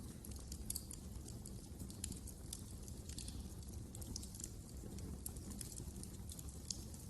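Wood fire crackling in a fireplace: irregular sharp crackles and pops over a steady low rumble of the flames.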